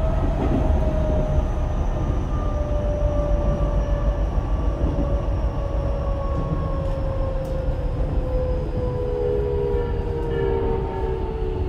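Tokyo Metro 10000 series electric train heard from inside the car: a steady rumble of wheels on rail, with the traction motor and Mitsubishi IGBT-VVVF inverter whine falling steadily in pitch as the train slows.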